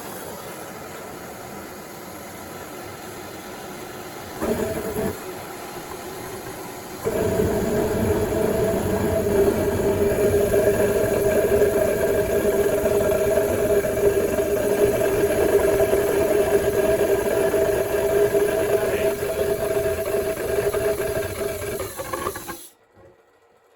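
Homemade oil burner running with air forced through its tube: a steady hissing rush that jumps much louder about seven seconds in, carrying a steady hum, and cuts off suddenly near the end.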